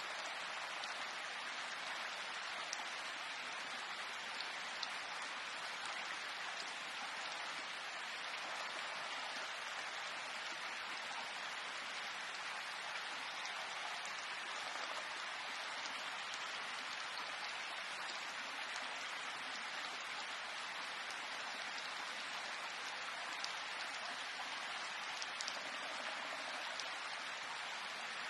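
Steady rain, an even hiss of falling rain with a few louder single drops ticking now and then.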